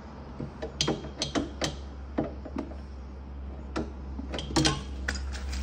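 Hand tool clicking and tapping on a tight metal nut of a fridge compressor's fittings as it is worked loose: irregular sharp metal clicks over a steady low hum.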